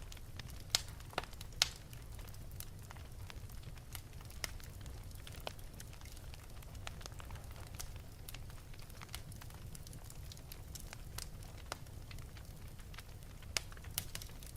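Wood fire burning in an open fireplace: irregular sharp crackles and pops over a steady low rumble, with the loudest pops about a second in and near the end.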